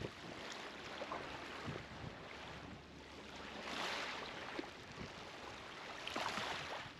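River water washing at the bank, swelling up twice, with a light rush of wind and a few faint ticks.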